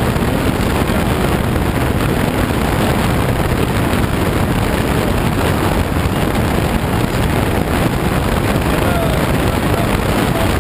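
Steady rush of air streaming over a glider's canopy in flight, heard from inside the cockpit as an even, unbroken noise.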